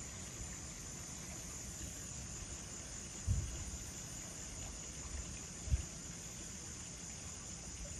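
Steady night chorus of crickets, a constant high shrill hiss. Two brief low thumps break in, about three seconds in and again a couple of seconds later.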